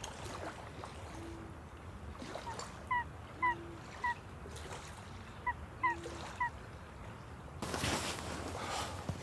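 Birds calling: two groups of three short, high calls, with a lower drawn-out note three times at even spacing. Near the end there is a burst of rustling.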